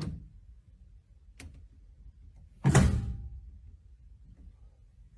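A faint click, then about halfway through a single sharp thump that fades out over about half a second.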